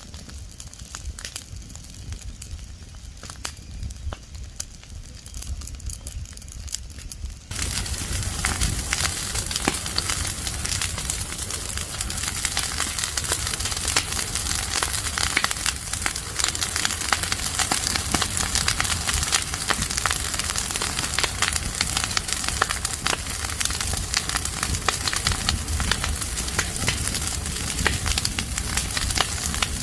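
Fire of burning dry leaves and branches crackling and popping with irregular sharp snaps. About seven seconds in it suddenly becomes louder and denser.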